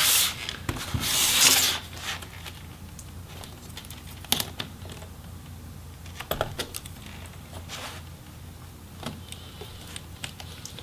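A plastic laptop palm rest scraping and sliding over a tabletop as it is flipped over, twice in the first two seconds. Then scattered light clicks and taps as a small screwdriver and small parts are handled, with the DC jack being removed.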